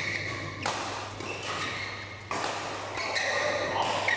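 Badminton rally: rackets striking a shuttlecock, a few sharp hits about a second and a half apart.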